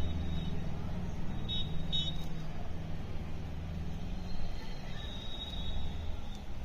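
A low, steady motor-vehicle engine rumble, with two short high-pitched tones about a second and a half in and a longer high tone near the end.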